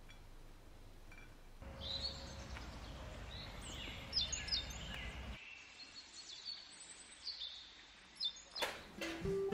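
Songbirds chirping and singing in short repeated calls over faint outdoor background noise, starting about two seconds in. A few sharp clicks come near the end, just as guitar music begins.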